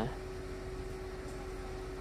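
Steady low hiss with a faint constant hum: the background noise of the voice-over recording.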